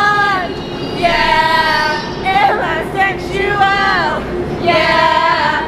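Several young women singing loudly together in high voices, with long held notes that slide in pitch.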